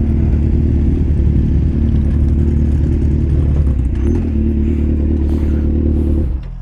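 Four-cylinder motorcycle with an aftermarket SC-Project-style exhaust running steadily at low revs, loud and even; the sound drops off sharply near the end.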